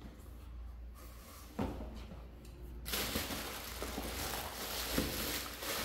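Plastic bubble-wrap packaging rustling and crinkling as it is handled, starting about three seconds in, after a single knock about a second and a half in.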